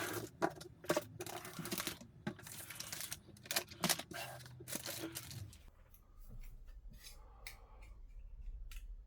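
Crinkling and tearing of packaging mixed with small clicks and knocks of parts being handled, busy at first and thinning out to a few sharp ticks after about five seconds.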